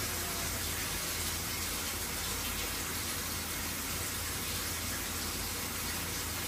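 Glow-worm Micracom combi boiler retrying ignition with its gas supply isolated, its fan running with a steady hiss and low hum. No gas reaches the burner, so it cannot light.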